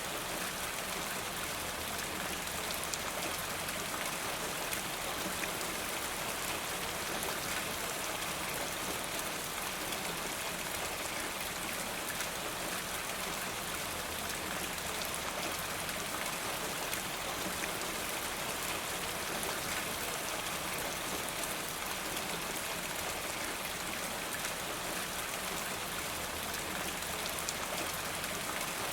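Steady rain falling, with drops pattering on hard surfaces and water running from a rain gutter.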